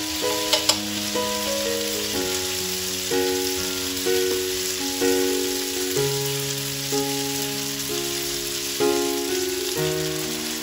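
Spaghetti sizzling in a hot frying pan as it is tossed with tongs, with two sharp clicks about half a second in. Background music with held chords plays throughout.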